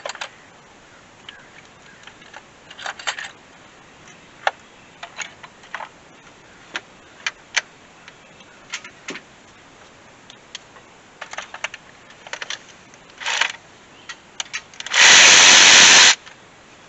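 Scattered clicks and knocks of parts being handled while the air intake hose and air filter housing are pulled off a truck engine. Near the end, a loud rushing burst lasting about a second.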